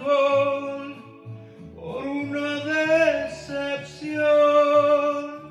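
A man singing long, held notes with vibrato into a microphone over a karaoke backing track, with the music fading near the end as the song closes.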